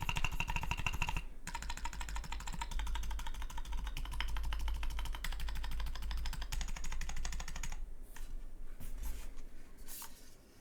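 Fast typing on a 60% custom mechanical keyboard, the Clever Blue Ridge, with DynaCap switches, an integrated POM plate and DCS keycaps: a dense run of key clacks with a brief pause about a second in. The presses thin out to a few separate keystrokes near the end.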